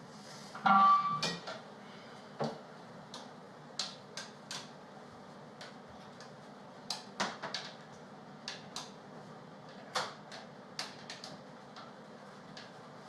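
Kitchen clatter: scattered sharp clicks and knocks of dishes, utensils and cupboards being handled, with a louder ringing clang about a second in.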